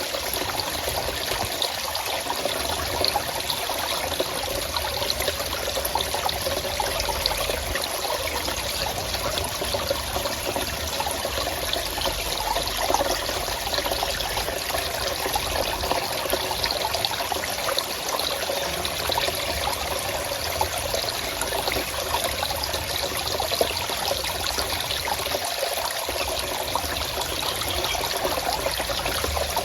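Forest stream flowing and trickling over rocks, a steady, unbroken water sound.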